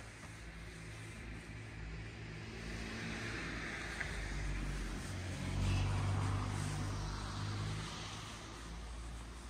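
A motor vehicle passing by: a low engine hum with tyre noise that grows louder, peaks about six seconds in, then fades.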